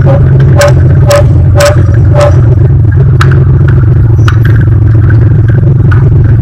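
Light aircraft's piston engine running steadily with a loud, heavy drone. Sharp clicks and rattles sound over it, about two a second with a short blip for the first two seconds, then scattered.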